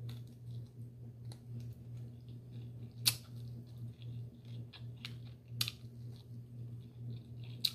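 Mukbang eating sounds: soft chewing and small mouth noises, with a few sharp clicks about three seconds in, about five and a half seconds in and near the end, over a steady low hum.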